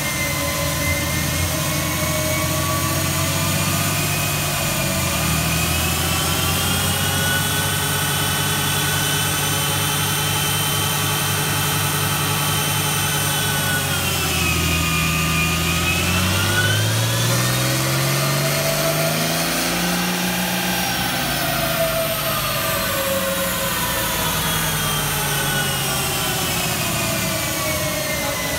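Dodge Ram pickup running on a chassis dyno, engine and drivetrain turning the rollers. The pitch dips, then climbs to a peak about two-thirds of the way through and falls away slowly as it winds down.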